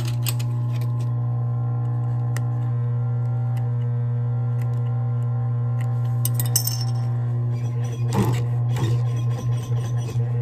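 Steady hum of an industrial sewing machine's motor with scattered clicks and clinks from the machine as leather piping is fed under the needle, over soft background music.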